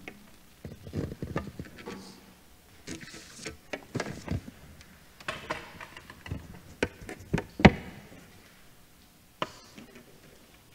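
Scattered light knocks, thumps and rustling from people moving about among wooden pews, with no speech or music.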